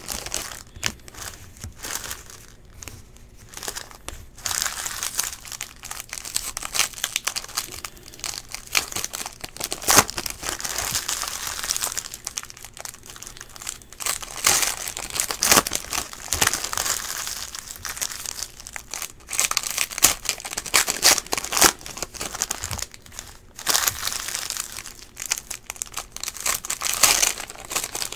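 Foil trading-card pack wrappers being torn open and crinkled by hand, in irregular spells of sharp crackling with a few brief quieter pauses.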